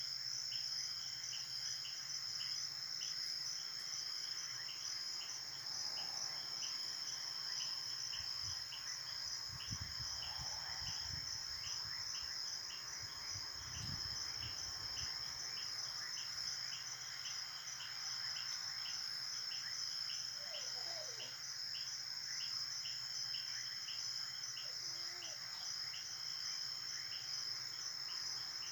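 Crickets chirring steadily: a continuous high trill with a second, regularly pulsing chirp beneath it. A few faint low rumbles come around the middle.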